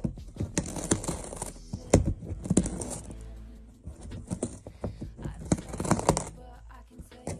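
A cat gnawing and crunching with its teeth, making a run of irregular crisp clicks.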